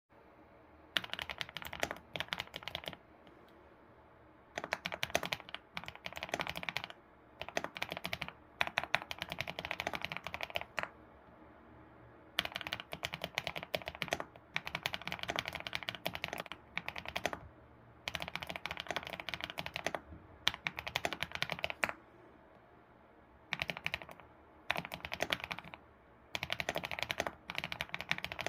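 ABKO computer keyboard being typed on in quick runs of clacky keystrokes, each run lasting one to three seconds, with short pauses between runs.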